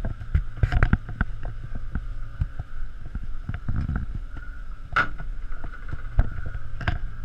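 A sailboat under way: a steady low rumble with a faint steady hum, broken by scattered knocks and clicks from a GoPro camera being handled. The loudest knock comes about five seconds in.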